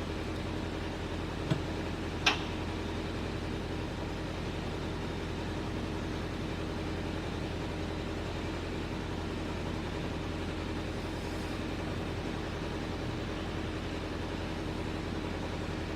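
A steady mechanical hum with two sharp clicks, about one and a half and two and a half seconds in, the second the louder.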